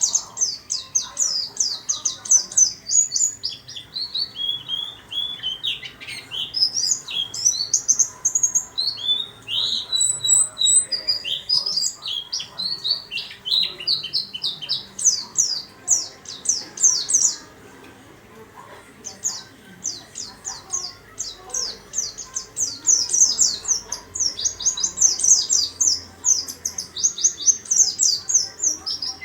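Caged white-eye (pleci) singing: long, busy runs of rapid, very high-pitched chirping notes, with a short break a little past the middle.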